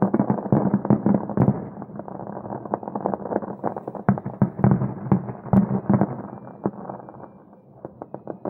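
Fireworks bursting in quick succession: a dense, overlapping run of bangs that thins out briefly near the end.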